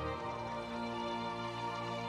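Slow background music of long held chords, with a change of chord just after the start.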